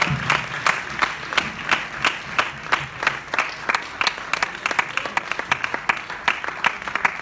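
Guests applauding the newly married couple, with one person's claps close by standing out at about three or four a second over the wider applause.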